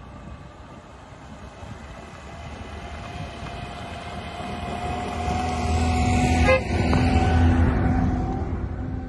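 A car approaching and passing on a rough dirt road, its engine and tyres growing louder to a peak about six to eight seconds in, then fading. A steady held tone runs through the loudest part, with a single knock about six and a half seconds in.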